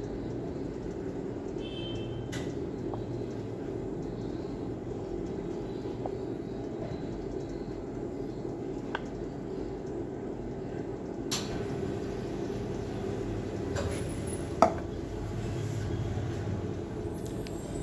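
Steamed milk poured from a stainless steel pitcher into a cup over a steady low room hum, with a few light clicks and one sharp clink about fifteen seconds in.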